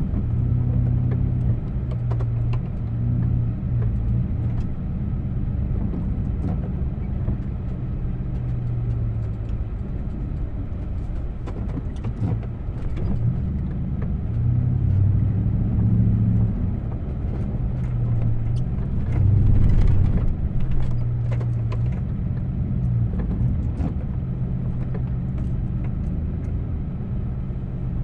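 Engine of a snow-clearing vehicle running steadily, its note swelling and easing several times as it works, with scattered faint ticks over it.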